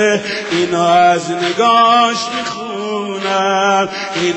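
A man singing a Shia mourning lament (noha) into a microphone, drawing out long notes that bend in pitch in a chant-like melody.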